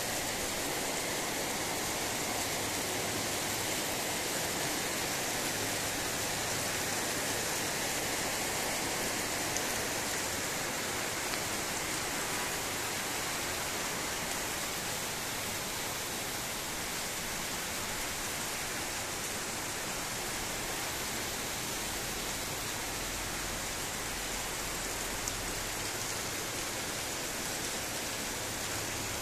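Steady rainfall, an even, unbroken hiss of rain.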